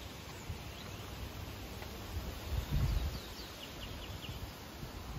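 Strong wind buffeting the microphone, an unsteady low rumble that swells about two and a half seconds in, with leaves rustling. A short run of faint high chirps comes through about three seconds in.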